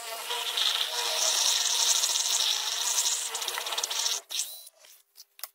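Cordless drill with a paddle mixer whirring steadily as it stirs tile adhesive powder into water in a plastic bucket. The drill stops suddenly about four seconds in, followed by a few light clicks.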